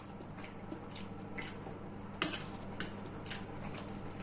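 Quiet eating sounds at a table: scattered faint clicks and taps of utensils and food, the loudest a little past two seconds in.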